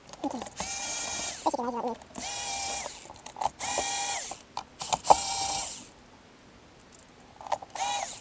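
Cordless electric screwdriver driving screws into a hoverboard's plastic shell. It whines in about five short runs of a second or less, with clicks between them and a pause of about a second and a half before the last run.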